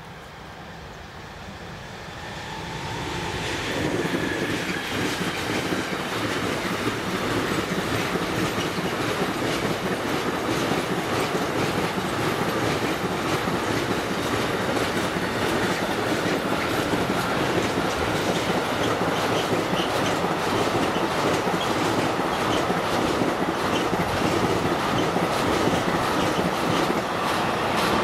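Long intermodal freight train passing a level crossing, getting louder over the first few seconds as it arrives, then a steady loud running noise with the wheels clacking rapidly on the rails.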